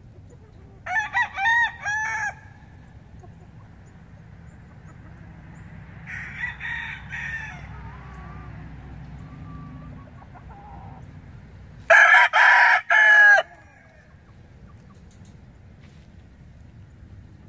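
Boston Roundhead gamecocks crowing three times: a crow about a second in, a fainter one around six seconds, and the loudest around twelve seconds, each about a second and a half long.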